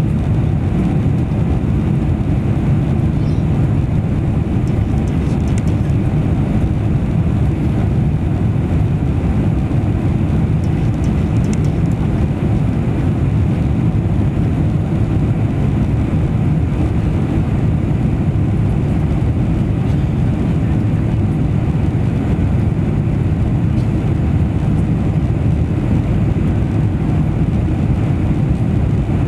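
Boeing 747-400 cabin noise in flight, heard from a window seat over the wing: a steady, deep rumble of engines and airflow that holds even throughout.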